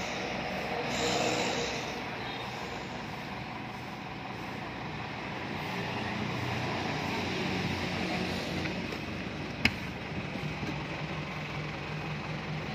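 Steady motor vehicle noise, an engine idling with road traffic passing; one vehicle swells past about a second in. A single sharp click comes about ten seconds in.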